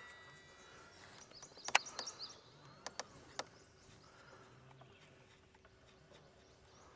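Songbirds chirping faintly, with a few sharp clicks about two to three and a half seconds in and a faint steady hum underneath.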